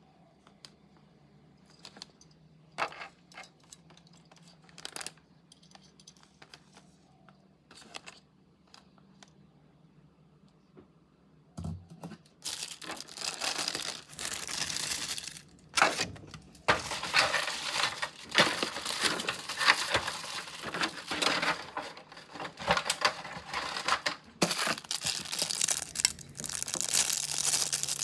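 Packaging being handled and opened: a few light clicks and taps at first, then from about halfway through, loud continuous crinkling and tearing of wrapping.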